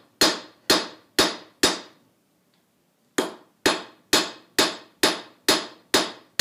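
Blacksmith's hand hammer striking a red-hot coil-spring steel bar on an anvil, steady blows about two a second, each with a short metallic ring. The hammering stops for about a second and a half near the middle, then resumes.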